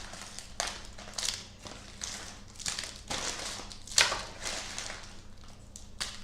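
Wrapped Hi-Chew candies being handled and sorted: a string of short wrapper crinkles and light taps, with one sharper click about four seconds in.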